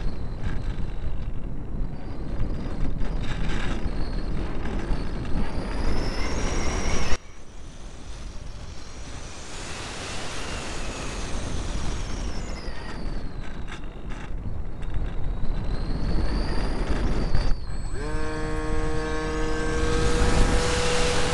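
Onboard sound of a small electric RC model Cessna in flight: wind rushing over the camera microphone, with a faint motor whine rising and falling. The whole sound drops sharply about seven seconds in. Near the end a steady, high electric-motor hum comes in.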